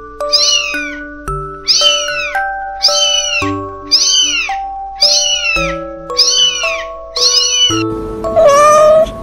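A very young kitten mewing repeatedly, with short high-pitched mews about once a second, over background music with held notes. Near the end comes one longer, louder and lower meow from a grown cat.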